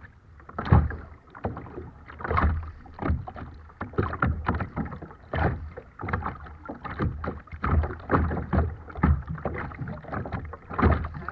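Choppy water splashing and slapping against a kayak's hull as it moves, with a louder splash every second or two.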